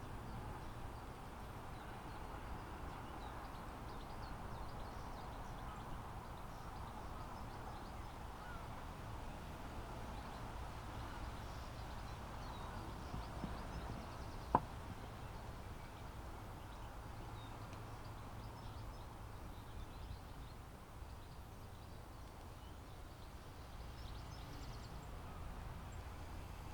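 Faint, steady outdoor seaside ambience: a low rumble with a soft hiss that swells and fades slowly. One sharp click sounds about halfway through.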